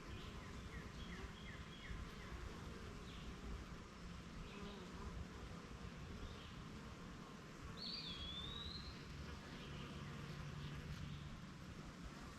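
Honeybees buzzing around a hive, a faint, steady low hum. A bird gives a quick run of about six short chirps in the first second or so and a single longer whistled call about eight seconds in.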